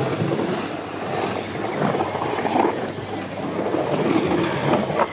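Skateboard wheels rolling on the concrete of a skate bowl: a continuous rough rumble that rises and falls in loudness as the board carves.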